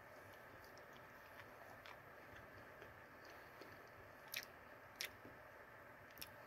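Faint chewing of a soft, microwaved french fry, with a few small mouth clicks. The clearest clicks come about four and a half and five seconds in.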